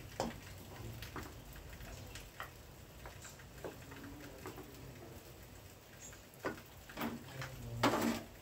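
Metal spatula scraping and tapping in a large aluminium karahi as cooked aloo gobi is scooped into a bowl: scattered faint clicks and scrapes, louder and busier near the end.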